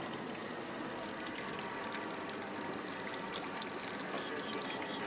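Steady wash and trickle of sea water, with no distinct splashes.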